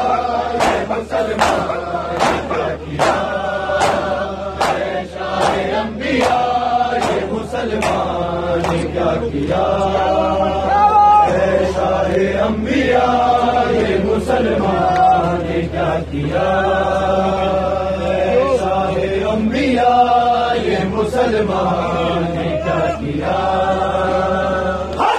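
Many men chanting an Urdu noha (Shia lament) together, with the slaps of hands beating bare chests (matam) keeping time about twice a second, most distinct in the first several seconds.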